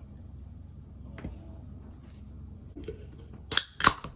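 Aluminium drink can being opened by its ring-pull: two sharp cracks close together about three and a half seconds in, after a few faint taps.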